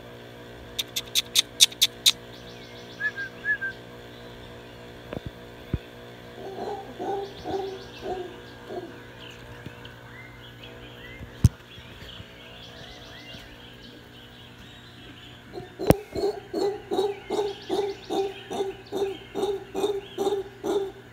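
Howler monkey calling: a short run of low hoots about six seconds in, then a steady rhythmic series of hoots, a little over two a second, through the last five seconds. Near the start there is a quick run of sharp high clicks.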